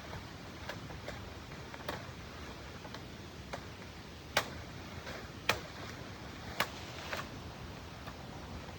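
Three sharp knocks about a second apart, among lighter scattered clicks, over a steady background hiss.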